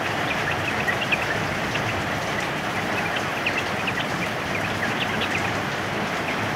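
Yellow-vented bulbuls (trucukan) chirping in quick, scattered short notes over the steady hiss of heavy rain.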